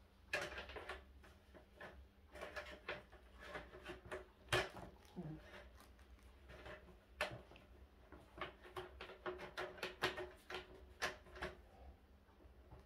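Aluminium slats of a roll-up camping table top clicking and clattering as the top is laid on and fitted onto its folding metal frame: an irregular string of sharp clicks and knocks, some ringing briefly, the loudest knock about halfway through.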